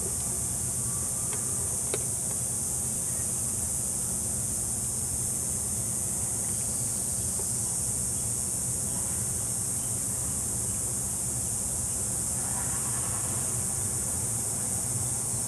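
Steady high-pitched insect chorus, with a low steady hum underneath.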